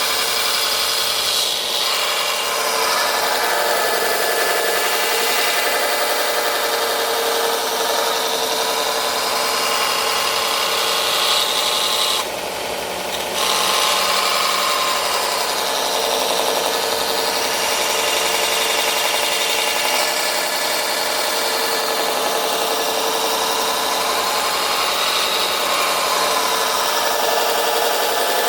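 Belt sander running steadily while a steel knife blade is ground against the belt to cut its bevel. The grinding noise drops out briefly about twelve seconds in, then resumes.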